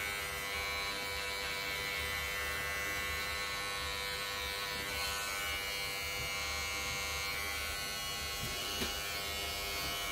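Electric hair clipper running with a steady buzz while it trims short hair at the nape of the neck.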